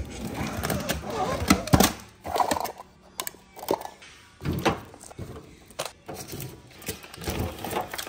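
A low steady hum for about the first two seconds, then scattered knocks and clicks at irregular intervals.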